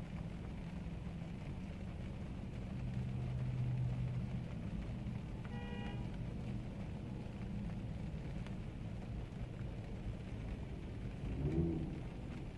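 Steady low rumble of a vehicle running. A brief high tone comes about six seconds in, and a short, louder low-pitched sound comes near the end.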